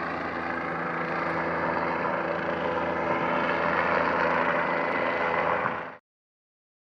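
A steady engine drone with a constant pitch, which cuts off abruptly about six seconds in.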